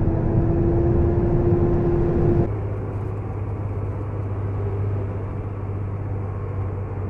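A vehicle driving, heard from inside the cab: steady engine and road rumble. For the first two and a half seconds a steady hum sits over it, then the sound changes abruptly to a lower, even rumble.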